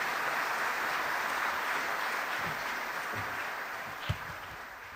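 Audience applauding, the clapping slowly dying away toward the end. A single low thump about four seconds in.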